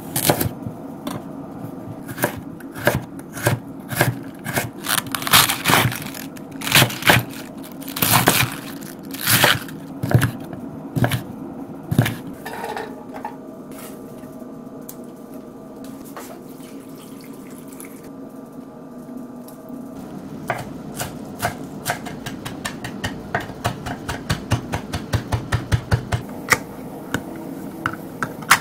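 Kitchen knife chopping a carrot on a wooden cutting board, a sharp strike about once a second, over a steady kitchen hum. After a quieter stretch, a small tin can is worked open with a run of rapid small clicks.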